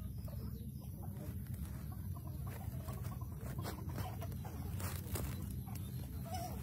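Light rustling and a few short clicks as a baby monkey scrambles over a woven plastic tarp and towel, over a steady low rumble, with a few faint short animal calls.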